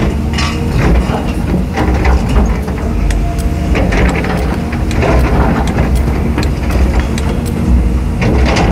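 Caterpillar 320D excavator's diesel engine running steadily under load, with scattered sharp knocks and scrapes of rock against the steel bucket as it digs among boulders.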